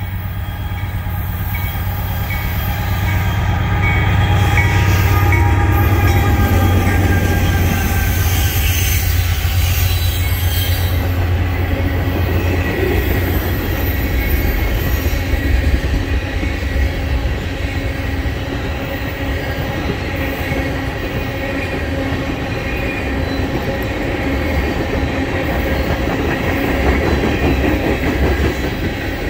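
Norfolk Southern freight train passing: the lead diesel locomotives grow loud and run by about five seconds in, then a long string of tank cars rolls past with a steady heavy wheel rumble and a continuous high wheel squeal.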